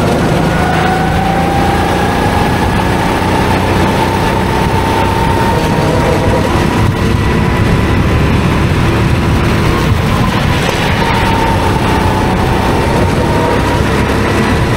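Go-kart running on a track: a steady drone with a whine that slowly rises over the first few seconds, holds, then dips slightly near the end.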